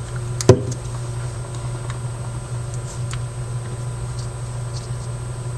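A single sharp knock about half a second in, like a small object set down on a workbench, with a few faint small ticks of handling afterwards, over a steady low hum.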